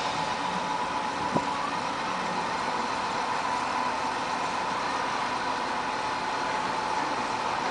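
An engine idling steadily, with a steady whine over it and a single sharp click about a second and a half in.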